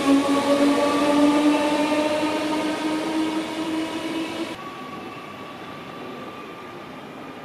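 Class 315 electric multiple unit pulling away, its traction motors giving a whine of several tones that rises steadily in pitch as it accelerates. About four and a half seconds in, the sound drops abruptly to a quieter hum as the train draws off.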